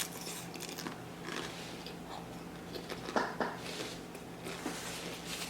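Close-up chewing of tortilla-chip nachos with faint crunching throughout and a louder crunch a little past three seconds in.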